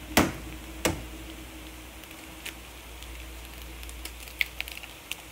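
Two sharp knocks in the first second, then a quick run of small clicks near the end, as an egg is cracked into a frying pan of stir-fried instant noodles. A faint steady hum runs underneath.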